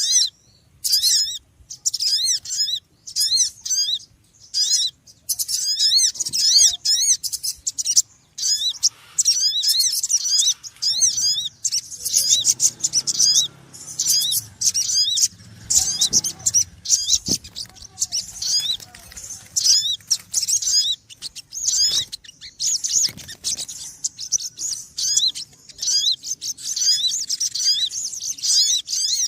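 Small bird chattering noisily: fast, high-pitched chirps repeated in quick runs, with short pauses between the runs.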